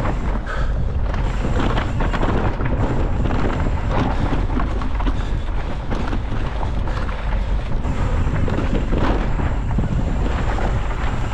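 Mountain bike ridden fast on rocky dirt single-track, heard from an action camera on the rider: a steady rumble of wind on the microphone over a constant rattle and clatter of tyres on stones and the bike's frame and chain shaking.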